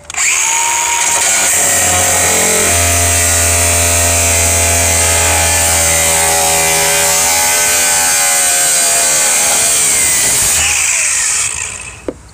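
Cordless angle grinder with a cutoff wheel cutting through a car's sheet-metal floor pan. It starts abruptly, runs loud and steady with a high motor whine over a harsh grinding hiss for about eleven seconds, then winds down as the trigger is released.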